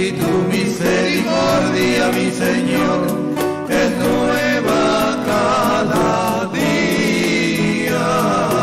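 A Latin-style guitar trio playing a hymn: two acoustic guitars strum and pick, with the men's voices singing together in harmony.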